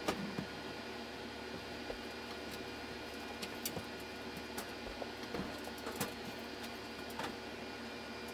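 Steady indoor hum with scattered light clicks and knocks as people shift household items around a cluttered room.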